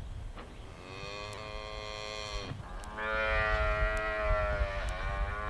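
Cattle mooing: two long moos, the first starting about a second in and the second, louder one about three seconds in.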